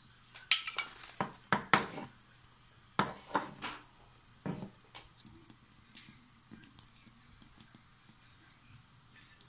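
Cutlery clinking and knocking against dishes while a cake is glazed and topped with raisins: a quick run of sharp clinks in the first four seconds, then a few fainter ones.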